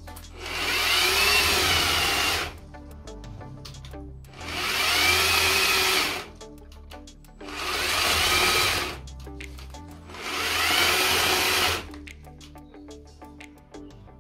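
Cordless electric chainsaw cutting through tree branches in four runs of about two seconds each, its motor whine rising and then falling in each run. The chain keeps stopping on its own, which the owner puts down to the saw's automatic stop.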